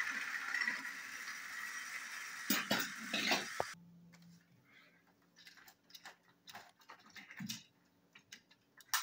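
Two battery-powered toy train engines running along plastic track with a steady rattling whir. A few clicks and knocks come about three seconds in, and the noise then drops away to faint scattered clicks.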